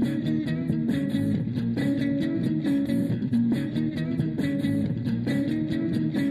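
Background music: plucked guitar over bass with a steady beat.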